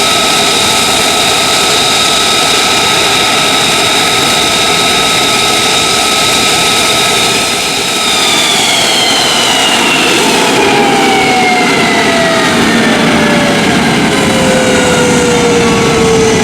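Lockheed Martin F-35A Lightning II's single F135 afterburning turbofan, loud jet noise with a steady high whine. From about halfway the whine slides steadily down in pitch as the jet passes.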